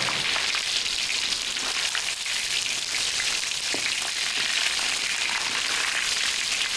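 Battered mud shrimp deep-frying in a wok of hot oil: a steady, dense sizzle.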